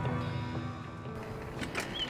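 Background music fading out, giving way to faint outdoor ambience with a couple of sharp clicks near the end.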